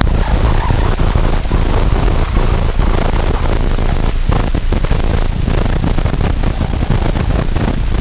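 Sonified temperature-log data: office temperature samples from a USB thermometer, played back about 2.4 million times faster than they were taken. It is a loud, steady static-like hiss and rumble, heaviest in the bass and with no treble, with a few faint clicks.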